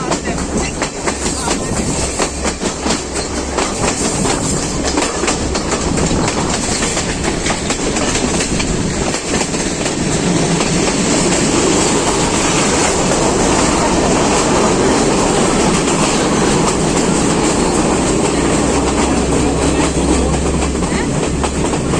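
Train running on the track, its wheels clicking over rail joints. The clicks are most distinct in the first several seconds, then give way to a steadier, slightly louder rumble.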